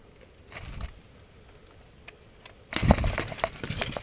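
Close clatter of knocks and clicks from an airsoft rifle and its sling being handled against cover, a soft thud about half a second in, then an irregular run of sharp knocks in the last second and a half, loudest at its start.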